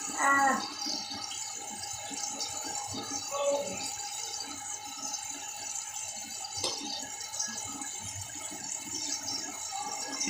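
A toothbrush scrubbing teeth with a fast, irregular scratchy rattle, over the steady hiss of a running tap.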